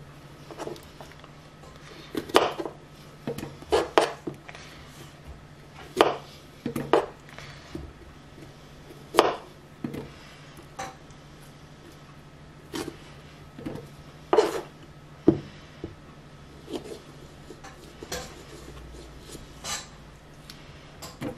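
A kitchen knife knocking and cutting on a plastic cutting board in irregular strokes as strawberries are hulled, over a faint steady hum.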